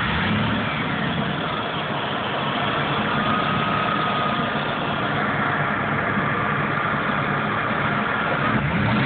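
Supercharged 5.4-litre V8 of a 2001 Ford SVT Lightning, fitted with a Whipple supercharger, idling steadily.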